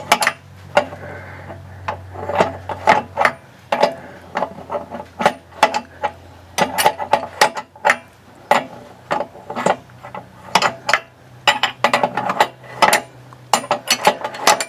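Hand tools and metal bolt hardware clinking and clicking, irregular sharp metallic clicks at about two to four a second, as bolts and brackets are worked by hand.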